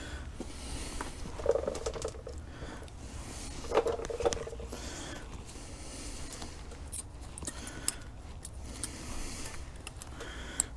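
Scattered light metallic clicks, clinks and scrapes of small new brake pad hardware clips being handled and fitted onto a brake caliper bracket by gloved hands.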